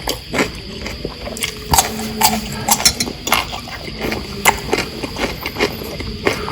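Close-miked chewing and mouth smacking from eating rice with omelette and chicken: a fast, irregular run of wet clicks.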